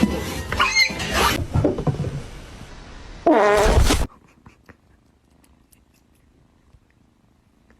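A cat gives one loud, wavering meow a little over three seconds in, after a stretch of fading mixed noise. Then it goes almost quiet, with a few faint clicks.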